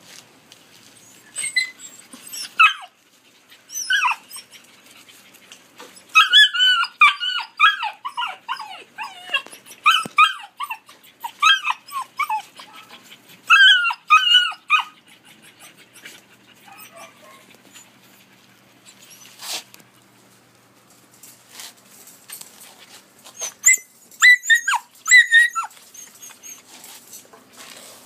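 Rough collie puppies whining and yipping: short, high-pitched falling calls in several bursts with quiet gaps between.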